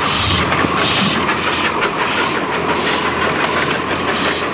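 Steam train running: regular hissing chuffs over a steady rumble and clatter of wheels on the rails.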